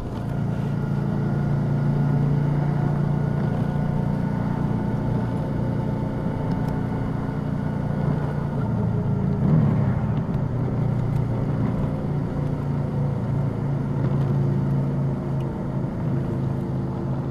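Suzuki V-Strom DL650's 645 cc V-twin engine running steadily at road speed while the bike is ridden, with a short waver in pitch about halfway through.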